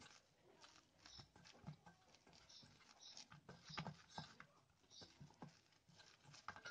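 Faint, soft patting and rubbing of oiled yeast dough being turned by hand in a stainless steel bowl, in short irregular touches.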